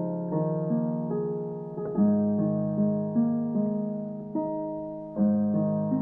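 Background piano music: single notes and chords struck about every half second, each fading after it is struck.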